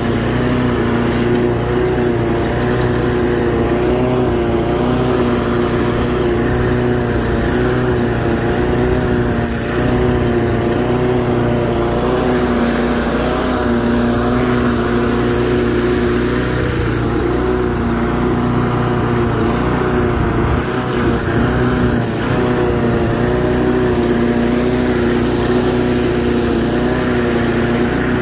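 Homemade push mower's 8.5 hp Briggs & Stratton engine, taken from a pressure washer, running steadily at working speed while cutting grass. Its pitch wavers slightly under load.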